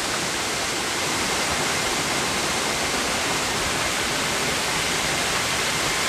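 Steady rush of a waterfall running full, heard close at its base.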